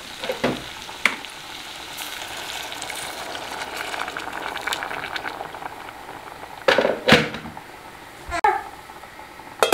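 Diced potatoes sizzling in olive oil and butter in a stainless steel saucepan, with water poured in partway through to cook them. Near the end come a few sharp knocks of metal cookware.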